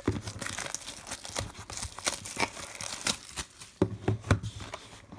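Trading card pack wrapper crinkling and tearing as it is opened by hand, a run of irregular sharp crackles.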